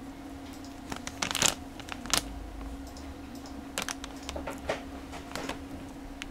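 Clear plastic bags of model-kit parts sprues being handled, crinkling and rustling, with a louder rustle about a second in and sharp crackles and clicks through the rest. A steady low hum runs underneath.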